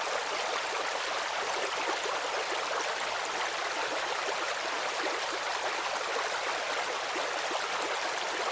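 Small stream running steadily over stones: an even rush of water with many small splashes and gurgles.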